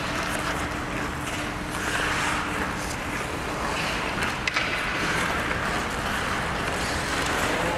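Ice hockey game ambience in an arena: the steady noise of skates and play on the ice, with a sharp crack about four and a half seconds in.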